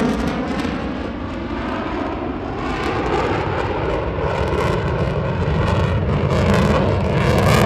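McDonnell Douglas F-15 Eagle's twin jet engines during a flyby: a loud, steady rush that eases slightly after the start, then builds again with a crackle in the second half.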